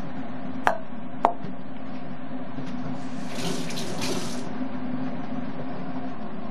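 Steady mechanical hum with two sharp clicks, less than a second apart, near the start, then a short burst of running water lasting about a second around the middle.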